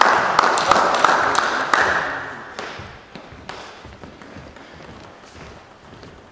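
Table tennis ball clicking and bouncing in a reverberant sports hall, a few sharp pings about three a second, over a wash of crowd noise that dies away after about two seconds. After that, only a few scattered single clicks are heard.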